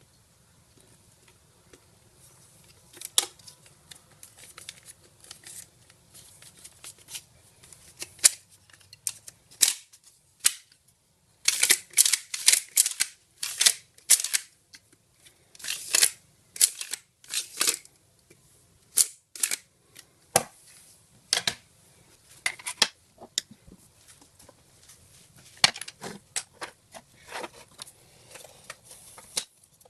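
Hard plastic parts of a car cup holder being handled and fitted together: a run of sharp clicks and rattles, single and in quick clusters, busiest in the middle.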